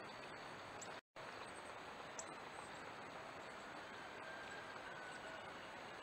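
Faint steady outdoor background noise picked up by a trail camera's microphone, broken by a brief dropout to silence about a second in where two recordings are joined.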